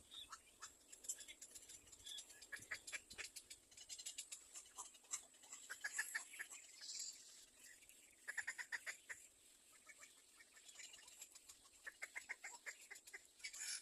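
Baby birds in a nest chirping faintly in quick runs of short, clicky cheeps, the fastest runs about eight seconds in and again near the end.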